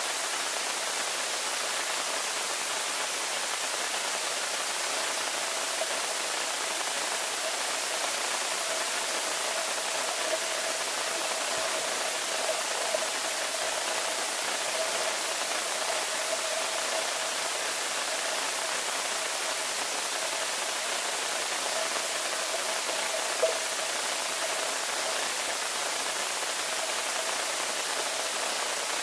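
Underwater swimming-pool ambience picked up by a submerged camera: a steady, even hiss of water noise, with a faint steady hum through the middle and one small tick late on.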